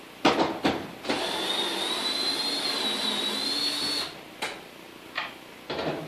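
Cordless drill-driver motor running for about three seconds with a steady whine, backing out a bolt from a garage door panel hinge. Short clicks of the bit on the hinge come just before and after.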